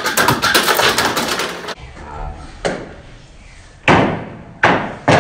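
A run of sudden knocks and slams, each dying away quickly: a dense clatter at first, then single strikes about a second apart. These are objects pulled in by the MRI scanner's live superconducting magnet striking the scanner.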